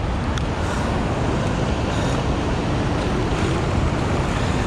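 Steady rush of water pouring through a dam's open spillway gates into the churning tailwater.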